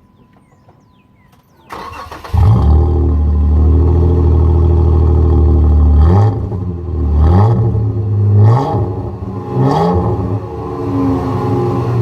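A Jeep Wrangler JK's engine, fitted with a Flowmaster Outlaw axle-back exhaust, is cranked by the starter about two seconds in and catches. It then idles with a deep exhaust note and is revved in four short blips, settling back to idle between them.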